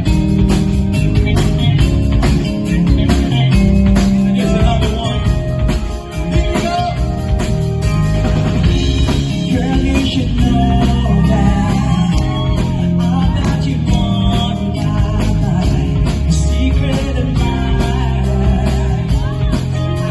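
Live band music: guitar, bass and drums, with a man singing the melody.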